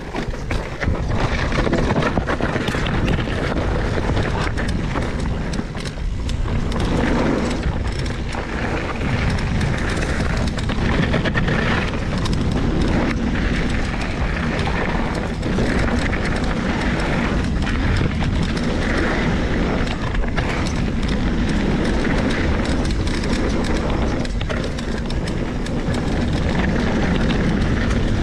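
Trek Remedy 27.5 full-suspension mountain bike riding a dry dirt trail. Wind noise is on the camera microphone and the tyres run over dirt and loose stones, with a constant run of small clicks and rattles from the bike.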